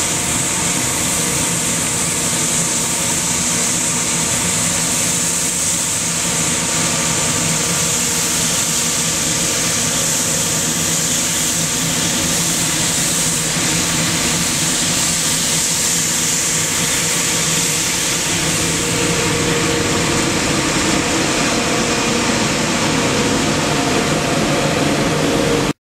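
Scania P94G 310 street-sweeper truck running as it sweeps: a diesel engine with a steady high hiss from its sweeping gear and spinning side brush.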